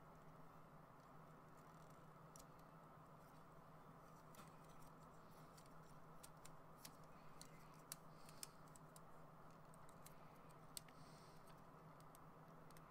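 Near silence with faint, scattered small clicks of plastic model-kit parts being handled and fitted, thickest in the middle, over a low steady hum.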